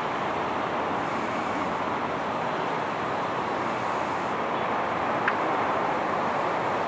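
Steady distant roar of airport and road traffic, including a taxiing Boeing 747-400's engines at low thrust, with a brief tick about five seconds in.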